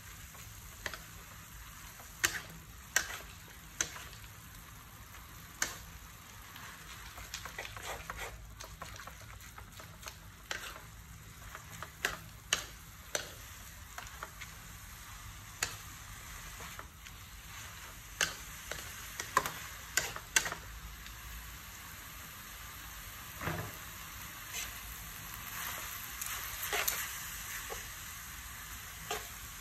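Noodles, beef and broccoli sizzling in a metal wok as they are stir-fried, with irregular sharp knocks and scrapes of the spatula and tongs against the pan.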